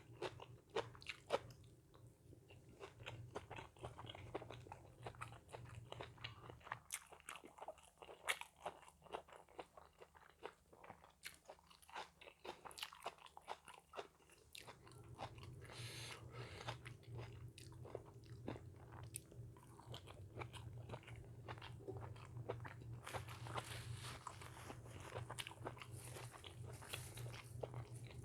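A person eating: irregular crunching bites and chewing.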